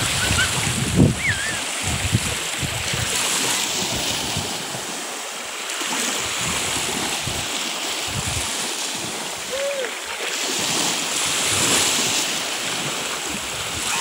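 Small waves of the Caspian Sea washing onto a sandy shore: a steady rush of surf.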